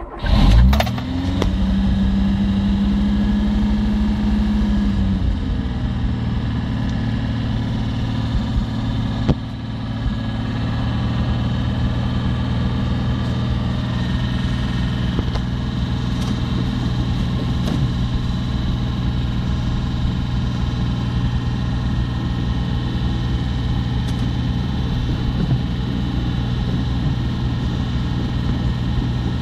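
VAZ 2104 (Lada) car engine starting: it catches right at the start, runs at raised revs for about five seconds, then drops to a steady idle.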